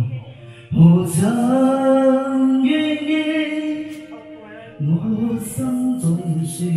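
A slow song with a voice singing long held notes over music, in two phrases with short pauses between them.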